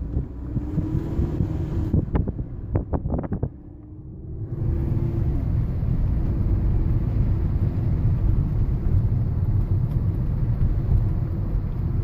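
Steady low rumble of road and wind noise inside a moving car. There are a few sharp clicks two to three seconds in and a short dip near four seconds, after which the rumble runs on slightly louder.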